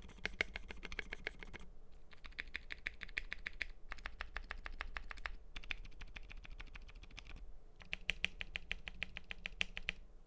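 Fast typing on an FL.eSports MK870 mechanical keyboard with lubed Akko CS Blue switches and TaiHao PBT keycaps. It comes as several quick runs of keystrokes separated by brief pauses.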